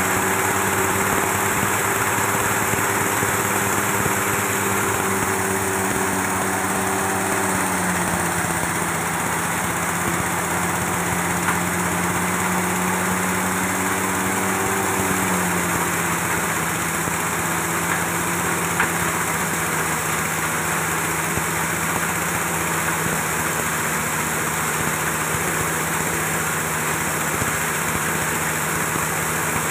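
Small stationary engine driving a multi-purpose chopper and grinder mill, running steadily with the rush of the grinding rotor as material passes through. The engine's pitch drops slightly about eight seconds in and again about fifteen seconds in.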